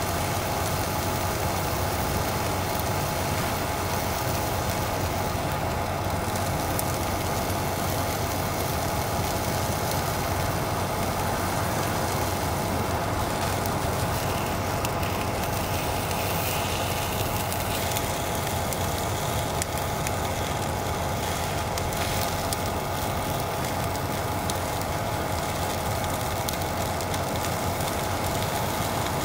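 Single-burner gas camp stove running steadily under a frying pan of sausage and fries: an even hiss with a steady hum under it.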